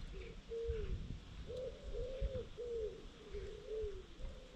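A dove cooing, repeating a three-note phrase with a longer middle note, over a low rumble.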